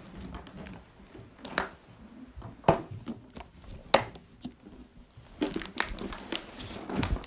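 Handling noise from a plastic accordion-shaped box set case: scattered clicks and knocks with some rustling as its keyboard-shaped top is lifted and the mock bellows pulled open, busiest near the end. No musical notes; the case cannot play.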